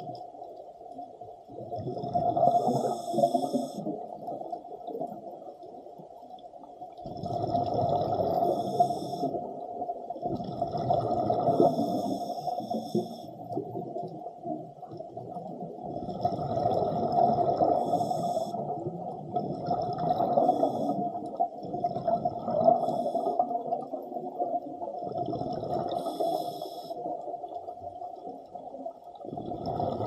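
Underwater recording of a scuba diver breathing through a regulator: surges of hissing and bubbling every four to five seconds over a steady hum.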